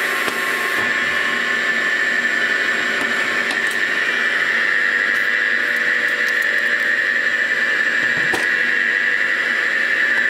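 CNC mill boring bar cutting a cylinder bore in an aluminium Lotus 910 engine block, with a steady high-pitched whine that grows slightly louder. There is a single sharp click about eight seconds in.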